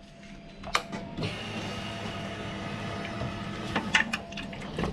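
Suzuki GSX-R1000's inline-four engine idling steadily through an Austin Racing muffler, with a few sharp clicks, the loudest about a second in and near the end.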